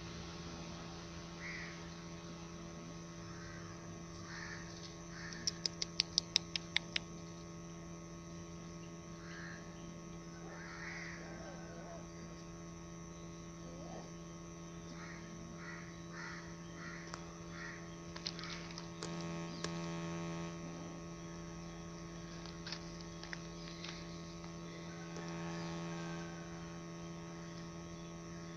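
A steady low hum, with a quick run of about eight sharp clicks around six seconds in and faint short chirps scattered through.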